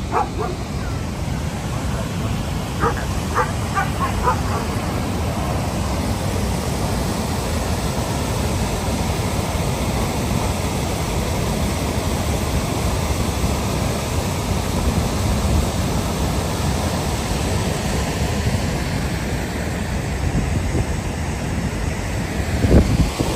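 Steady rushing noise of a large river waterfall and the rapids below it, with a few short yelps about three to four seconds in.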